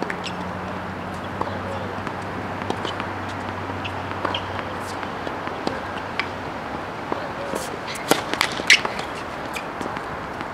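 Tennis ball bouncing on a hard court before a serve, among scattered sharp pops of balls on the courts around and faint distant voices. The loudest pops come in a quick cluster about eight seconds in, and a low hum fades out a little before that.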